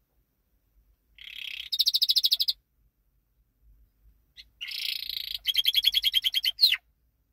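Yorkshire canary singing two short phrases of song, each a buzzy note running into a fast trill of rapidly repeated notes; the second phrase ends with a quick falling note.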